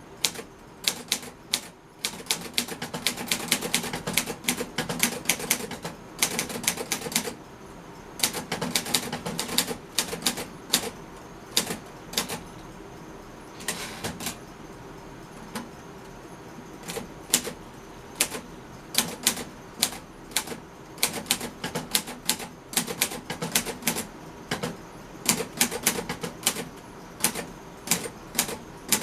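Underwood Finger-Flite Universal manual portable typewriter being typed on: type bars striking the paper in quick runs of clacking keystrokes, then in slower, spaced-out single strokes with short pauses between.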